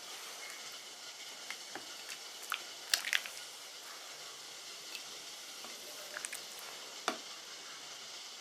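A ladle knocking and scraping against a pot and bowl as cooked food is served out, a scatter of light clinks with the loudest about three seconds in and another sharp knock about seven seconds in, over a steady low hiss.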